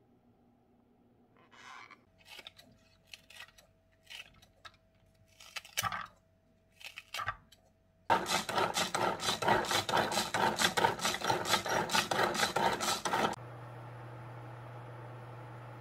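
Scattered clicks and knocks of handling, then a hand-operated vegetable chopper worked hard for about five seconds: a fast, even run of chopping and rattling strokes as its blades dice vegetables, stopping suddenly. A steady low hum follows.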